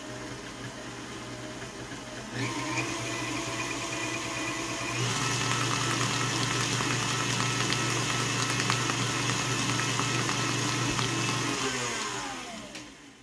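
KitchenAid Classic stand mixer running, its wire whip beating a cream cheese and condensed milk pie filling. The motor starts slow and steps up in speed about two seconds in and again about five seconds in, then is switched off and winds down near the end.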